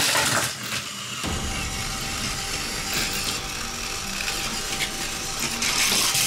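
Battery-powered Plarail toy train's small motor and plastic gears whirring as it runs along the plastic track. Plastic train cars clatter as they fall in the first half-second, and again near the end as the engine and its cars tumble off the track's end.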